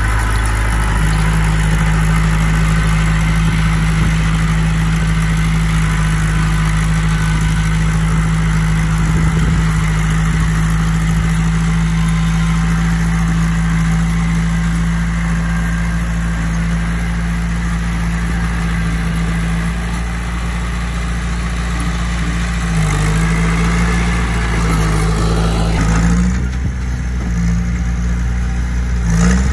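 Heavy diesel engine of an earthmoving machine running steadily. Its pitch sags briefly two or three times near the end as the load changes.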